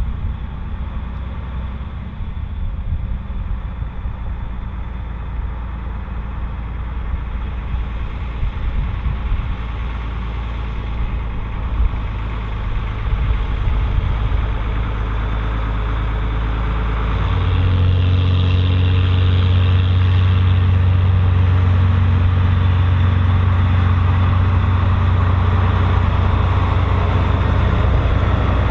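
Volvo BM814 tractor's diesel engine running under load while pulling a six-furrow plough. The engine note grows louder and steadier a little over halfway through.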